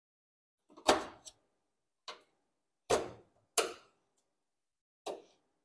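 Scalpel and forceps clicking and tapping against metal cutting tiles while fig stem explants are cut into pieces: about six sharp ticks at irregular intervals.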